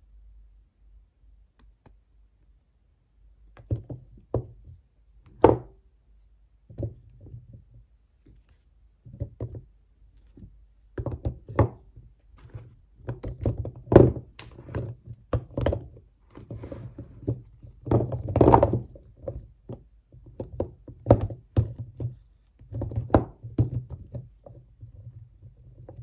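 Solid bars of soap knocking and clacking against one another as they are picked up, shifted and set down on a heap of other bars: irregular dull thunks, starting a few seconds in, loudest toward the middle.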